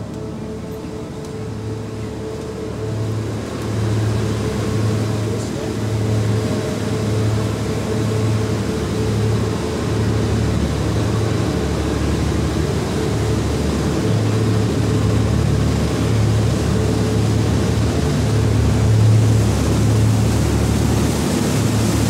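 Waterbus passenger ferry's engines running steadily under way: a low hum that throbs about once a second, under a rushing noise that grows louder about four seconds in and again toward the end.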